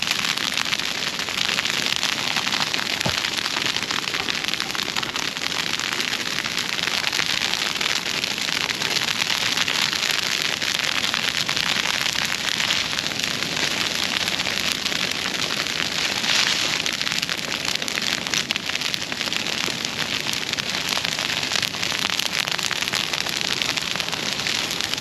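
Dry broomsedge grass burning close by: a dense, steady crackling of the flames.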